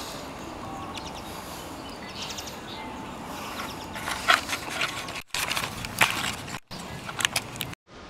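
Steady outdoor background noise with a handful of sharp knocks and rustles from a handheld camera being handled, broken by abrupt dropouts in the second half.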